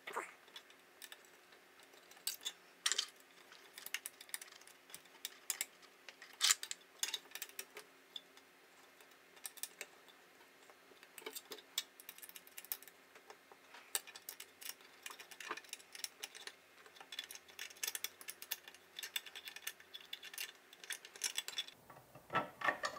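Irregular small clicks and taps of hands handling and pressing together a 3D-printed plastic mount and aluminium extrusion frame parts, over a faint steady hum. The handling noise gets louder near the end.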